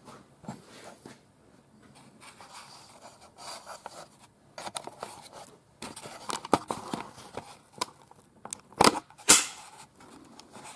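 Handling noise of a handheld camera being picked up and carried: rustling with scattered clicks and knocks, and two sharp, loud knocks close together near the end.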